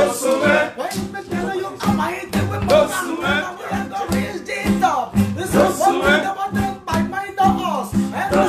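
A man rapping over music with a steady beat. A beaded gourd shaker (shekere) is shaken along.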